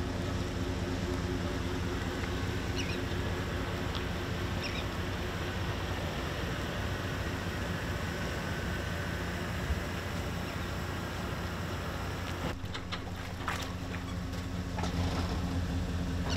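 Tow vehicle's engine running at a steady idle, a continuous low hum, while the boat trailer is backed down the ramp.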